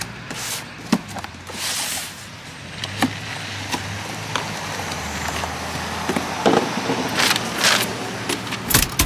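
Cardboard box being slit open with a utility knife and its flaps pulled back, followed by paper and foam packing rustling and scraping as the contents are uncovered: a string of irregular clicks and scrapes. A low vehicle engine hum runs underneath for the first part.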